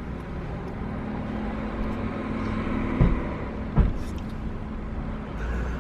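Car running, heard from inside the cabin: a steady low engine and road hum. Two short low thumps come less than a second apart about three seconds in.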